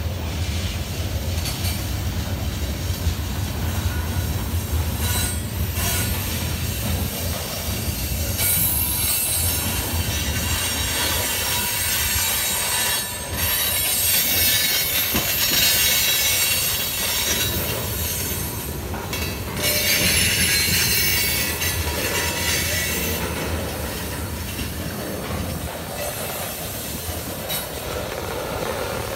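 Freight train of loaded covered hopper cars rolling past on a curve, steel wheels squealing in high swells over a steady low rumble of wheels on rail.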